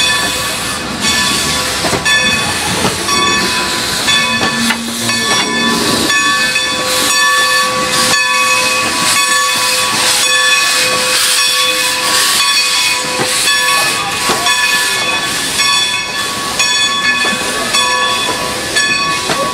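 Strasburg Rail Road No. 90, a 2-10-0 steam locomotive, standing and hissing loudly with escaping steam. Several steady, whistling tones run through the hiss, with a lower tone joining for a few seconds in the middle.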